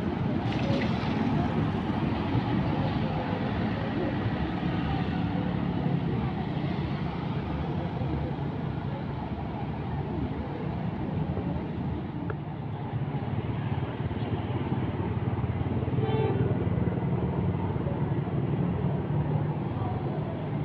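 Steady traffic rumble of buses and motorcycles: a coach's engine running as it pulls out, with motorbikes passing.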